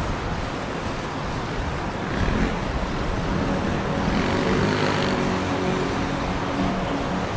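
Boeing 777-300ER's GE90 jet engines on landing approach, a steady rush with a whine that builds from about two seconds in and is strongest around the middle.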